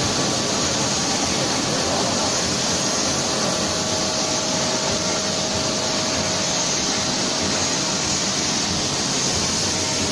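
Small EPE foam net extrusion machine running: a steady, unbroken hiss and whir, with a faint steady hum underneath.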